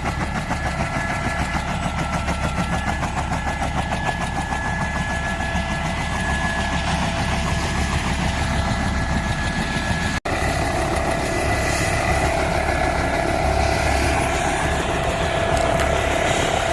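An engine running steadily with a fast pulsing beat. About ten seconds in the sound changes abruptly and a stronger steady hum joins it.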